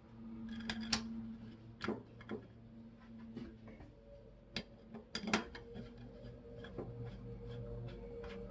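Metal parts of a Bostitch framing nailer clicking and clinking as they are handled and fitted during reassembly: a handful of sharp clicks, the loudest about a second in and about five seconds in, over a steady low hum.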